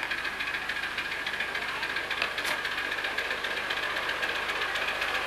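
Miniature-railway locomotive running steadily along the track with a rapid, even beat, pulling a loaded riding car and growing slightly louder as it approaches, with one sharp click about halfway through.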